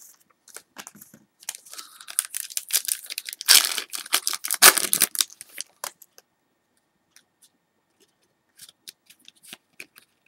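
A trading-card pack wrapper being torn open, crinkling for a few seconds and loudest in the middle. It goes quiet, then a few light clicks of cards being handled follow near the end.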